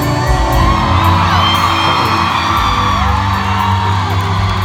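Live pop band and singer playing a concert, heard from within the audience, with crowd whoops gliding up and down over the music.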